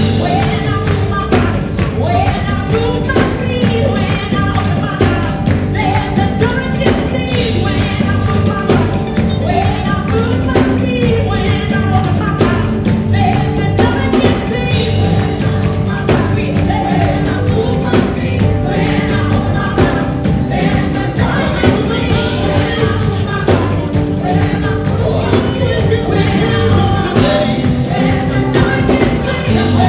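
Gospel music with a lead singer and backing vocalists over a live band with drums, keeping a steady beat throughout.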